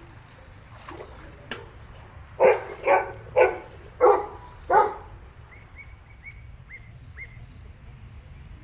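Five loud animal calls in quick succession, about two a second, then several short, high bird chirps, over a steady low outdoor background noise.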